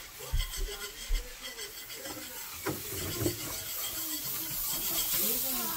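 Milk being poured into a hot bacon-grease-and-flour roux in a frying pan, hissing as it hits the pan, then a whisk scraping and rubbing around the pan to mix it. The hiss builds toward the end.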